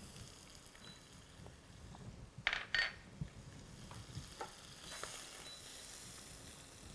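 Butter melting and sizzling faintly in a hot stainless steel skillet, with two sharp clicks close together about two and a half seconds in.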